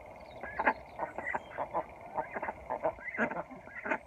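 Domestic ducks quacking: a steady run of short quacks, three or four a second.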